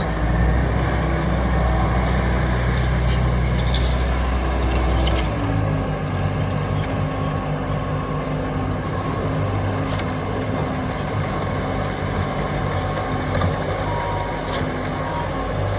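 Bobcat T450 track loader's diesel engine running steadily, its note changing and the deep low end dropping away about five seconds in, with a few light clicks over it.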